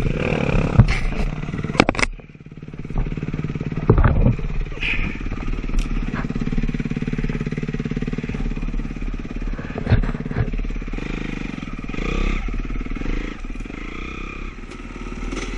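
Honda CRF250R dirt bike's single-cylinder four-stroke engine running. Its sound drops away about two seconds in and picks up again with a sharp knock about four seconds in, then runs steadily, with a few more knocks.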